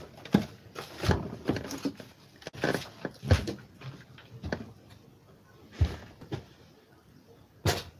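Irregular knocks and thumps of things being moved about in a small room, about a dozen scattered hits with quiet between, the loudest near the end.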